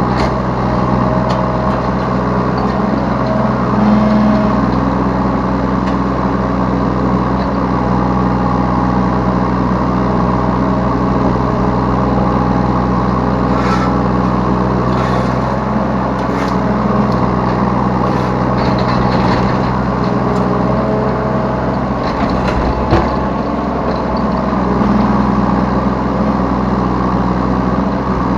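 Diesel engine of a Yanmar B3 Sigma 3-tonne mini excavator running steadily under working load, with a single sharp knock late on.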